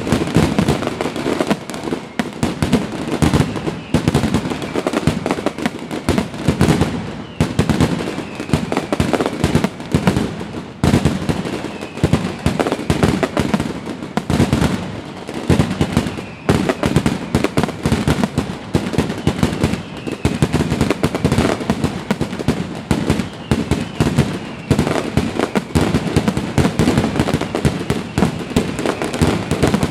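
Fireworks display: aerial shells bursting and crackling one after another in a dense, unbroken barrage.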